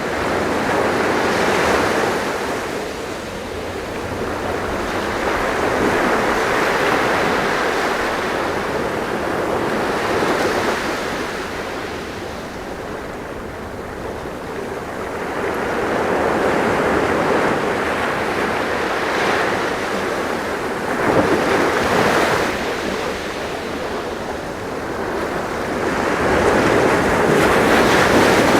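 Sea waves breaking and washing ashore, the surf swelling and ebbing every several seconds, with a few sharper breakers standing out.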